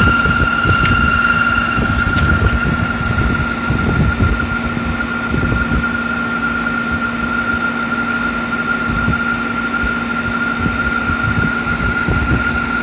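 Air conditioner making a weird noise: a steady high-pitched whine with a lower steady hum beneath it, over irregular low throbbing.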